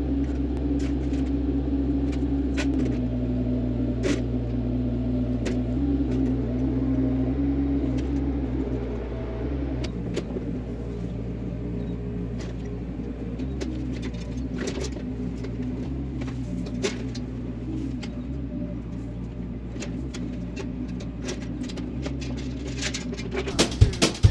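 Diesel engine of a compact construction machine (mini excavator or skid steer) running steadily, with scattered clanks and knocks; the engine note eases and gets a little quieter about ten seconds in.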